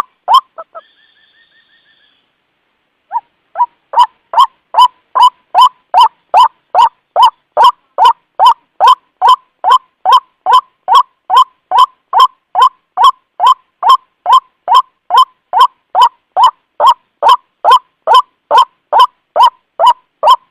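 White-breasted waterhen (ruak-ruak) lure call: a loud, monotonous run of short, identical notes, a little over two a second, the call that draws other waterhens in. It breaks off just after the start, when a faint high twittering trill is heard, and resumes about three seconds in.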